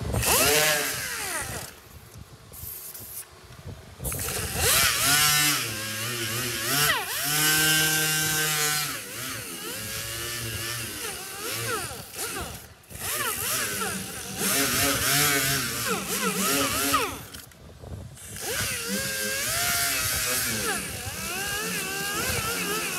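Pneumatic dual-action sander running on body filler over sheet steel. It whines with a hiss of air, its pitch rising and falling. It stops briefly twice.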